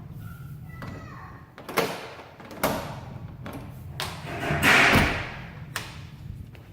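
Several sharp knocks and thuds, with a louder, longer noisy rush just past the middle.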